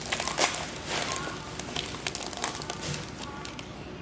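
Foil trading-card pack wrapper crinkling and cards being shuffled by hand: a run of short, irregular rustles and crackles.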